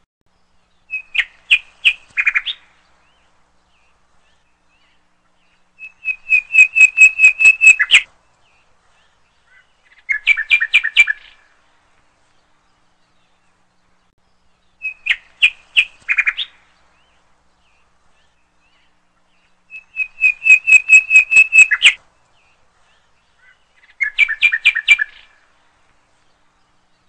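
Bird chirping in quick trilled phrases of several notes each, with silent gaps between; the same run of three phrases repeats identically about fourteen seconds later, as from a looped recording.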